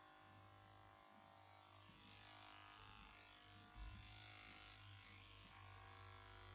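Electric horse clippers running with a faint, steady buzz while clipping the hair on a horse's face. The buzz gets a little louder about two seconds in.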